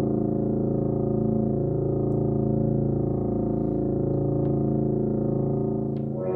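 Electronic drone from a sculptural sound machine: a sustained chord of many steady tones with slow beating between them, with a few faint clicks. Right at the end a brighter set of tones takes over.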